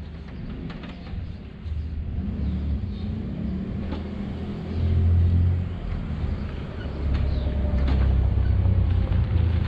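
Low engine rumble of a motor vehicle, swelling louder about five seconds in and again from about seven seconds.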